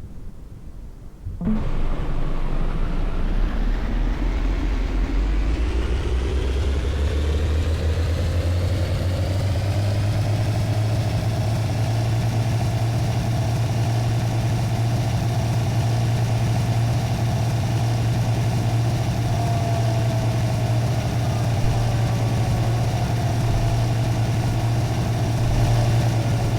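A motor starts suddenly, winds up steadily in pitch for about ten seconds, then holds a steady drone until it cuts off.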